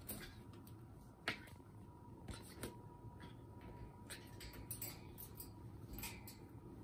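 Faint scattered clicks and taps from a pet Amazon parrot moving about, with one sharper click about a second in.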